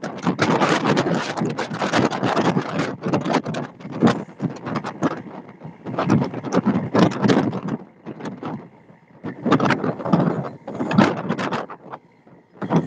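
Wind buffeting the microphone in uneven gusts over the rush of water along a moving fishing boat's hull. It eases off briefly about two-thirds of the way through and again near the end.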